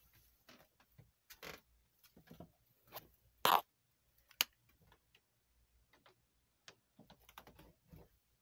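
Irregular scattered clicks, taps and brief rustles. The loudest is a short rustle about three and a half seconds in, with a sharp click just after it.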